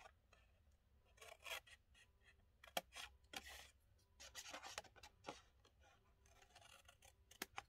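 Paper snips cutting scored patterned paper: a faint series of short, irregular snips, with light rustling as the sheet is handled.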